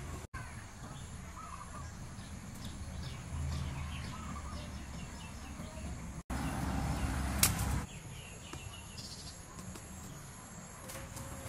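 Outdoor ambience: scattered bird chirps over a steady low rumble of wind. There is a single sharp snap a little past the middle, and the sound drops out for an instant twice.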